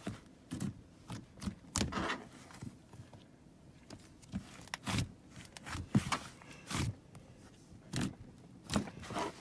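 A small, sticky slime being squished and pressed by hand, giving irregular sticky clicks and pops.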